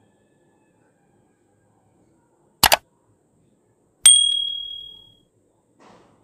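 Subscribe-button pop-up sound effect: a quick double click about two and a half seconds in, then a single bright bell ding about a second and a half later that rings out and fades over about a second.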